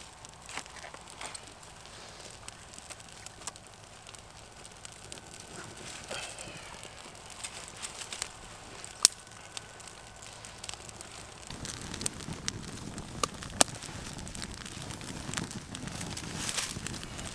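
Small fire of birch bark and thin twigs catching from a smouldering tinder bundle. It gives sparse crackles and a couple of sharp snaps, and grows into a steadier, louder burning in the second half.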